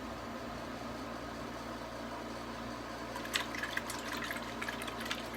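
A small paintbrush rinsed in a jar of water: irregular little splashes and clinks start about three seconds in, over a steady background hum.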